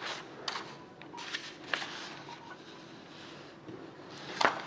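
Soft handling noise of a printed paper sheet being moved: a few brief rustles about a second apart, the loudest near the end.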